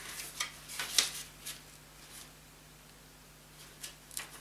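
A folded paper CD booklet being opened out and handled: a few short rustles and crinkles of paper, the sharpest about a second in, a quiet stretch, then two more near the end.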